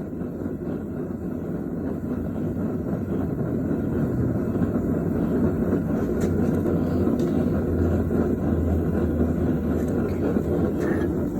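Gas torch flame roaring steadily as the bronze leaf is reheated between hammering passes, growing slowly louder.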